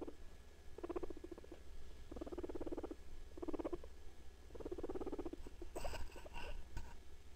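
Guinea pig purring: about five short pulsed rumbles, a little over a second apart, with a cluster of scratchy clicks about six seconds in.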